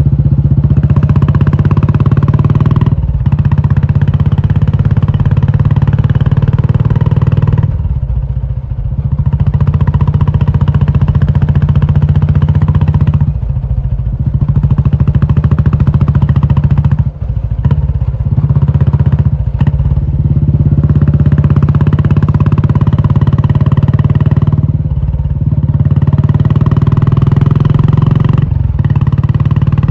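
Royal Enfield Classic 350's single-cylinder engine running through a loud aftermarket Indore exhaust, with short dips in the note every few seconds.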